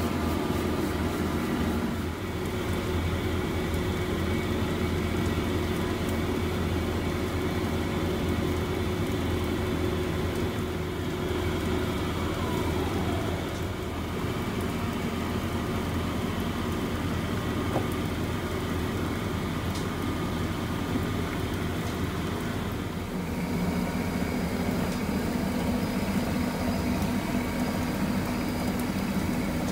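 Electric machinery running with a steady hum made of several steady tones; its tone shifts about 23 seconds in, as a different part of the machine takes the load or another machine starts.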